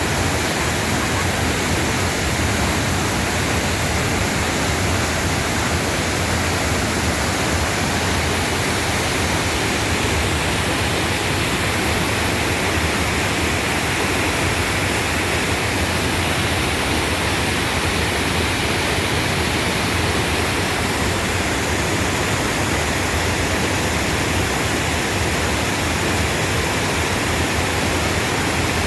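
Waterfall pouring into a mountain valley stream, a loud, steady rush of falling water.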